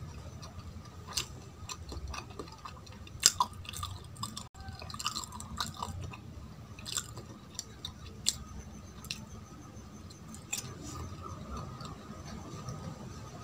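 Close-miked chewing of a piece of jalebi, wet mouth sounds with a few sharp crunches of the crisp, syrupy sweet scattered through.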